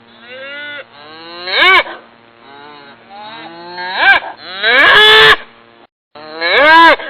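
Cows mooing: four loud, drawn-out moos that rise and fall in pitch, the longest about two-thirds of the way in, with quieter lowing between them.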